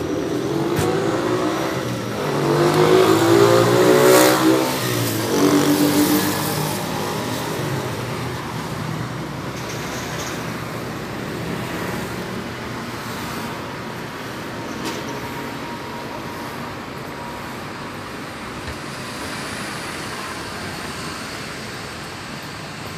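Street traffic: a motor vehicle's engine revs and accelerates past over the first several seconds, rising and falling in pitch, then settles into a steady traffic rumble.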